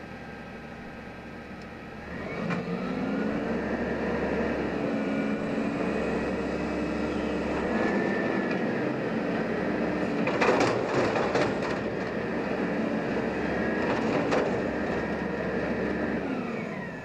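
Peterbilt 320 front-loader garbage truck's engine revving up about two seconds in to drive the hydraulic forks as they lift a dumpster over the cab. Several sharp metal bangs come in the middle as the dumpster is shaken out into the hopper, and another a few seconds later, before the engine drops back near the end.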